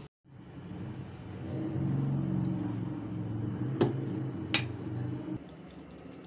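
A steady mechanical hum like a small motor running, rising at first and cutting off abruptly about five seconds in, with two sharp clicks partway through.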